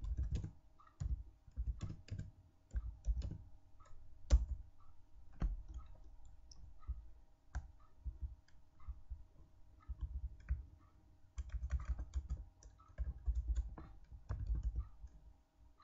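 Computer keyboard typing: irregular keystrokes with short pauses, and a quicker run of keys about eleven seconds in. A faint steady hum sits underneath.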